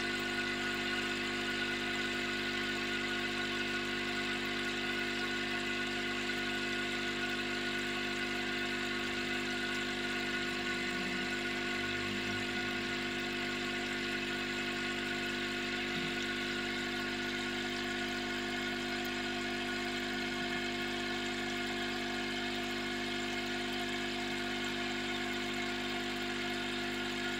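Steady mechanical hum of a small motor, even and unbroken.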